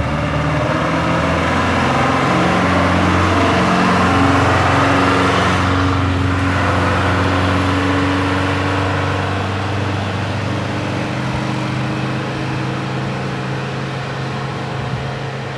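Bus engine running as the bus drives on, its low note stepping up and down in pitch. It eases off slightly over the last few seconds.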